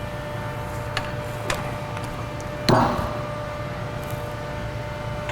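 Hand tools on a truck's front brake caliper bracket: a few light metal clicks, then one louder clank about two and a half seconds in, over a steady shop hum.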